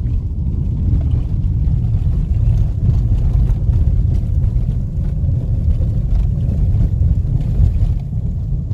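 Steady low rumble of a car driving, heard from inside the cabin: engine and tyre noise on a rough concrete road.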